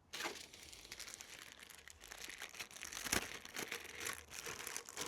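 Plastic packaging crinkling and rustling as it is handled, with many small crackles and clicks, loudest about three seconds in.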